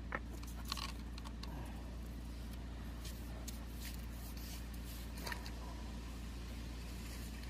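Scattered light clicks and rustles from a fishing rod being handled close to the microphone, over a steady low hum.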